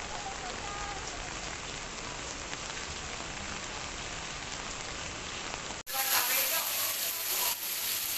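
Heavy rain falling on stone paving, a steady hiss. About six seconds in it cuts to a closer recording of rain splashing on paving stones, a little louder.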